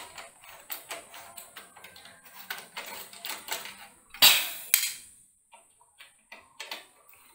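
Small clicks and knocks of parts being handled inside an open desktop computer case, with a loud sharp knock about four seconds in and a second one just after, then only a few faint clicks.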